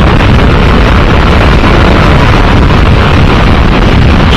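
Loud, steady wind roar on the microphone of a motorcycle ridden at highway speed, about 110 km/h.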